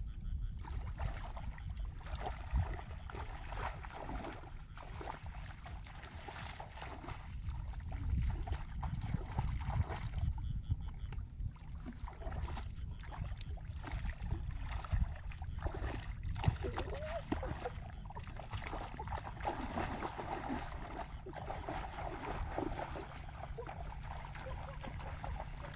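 Shallow muddy paddy water splashing and sloshing in irregular bursts as a person wades through it and gropes in it by hand for fish, over a steady low rumble.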